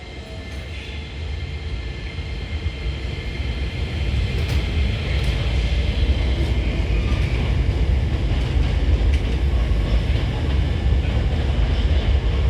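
Hankyu 1000 series electric train pulling away, its rumble growing louder over several seconds as it gathers speed, with a thin high whine and scattered sharp clacks from the wheels.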